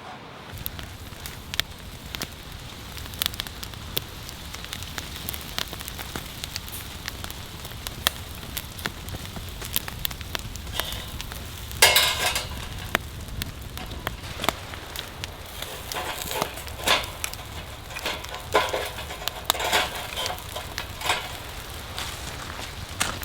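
Firewood burning, crackling with irregular sharp pops over a low steady rumble. A louder, denser burst of crackling comes about twelve seconds in.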